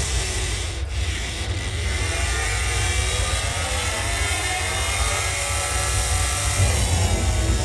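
Ambient soundtrack of a fulldome planetarium show: a deep, steady rumble under a wash of noise, with faint tones sweeping up and down through the middle of it.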